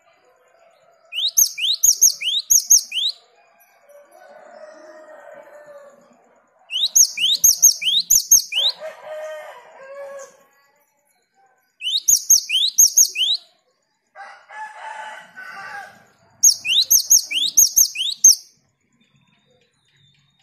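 Cinereous tit (gelatik batu) singing its rolling 'ngerol' song: four bursts of about two seconds of rapid, sharp rising notes. Lower, rougher calls from another bird fill the gaps between the bursts.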